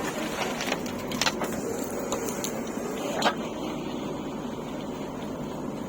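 Diesel engine of heavy machinery running steadily, with several sharp knocks and clanks in the first few seconds, the loudest a little over three seconds in.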